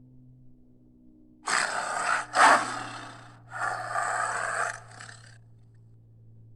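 Prehistoric-beast sound effect made from Hyaenodon calls: three rough, noisy calls in quick succession, each about a second long, the middle one the loudest, over a faint steady low hum.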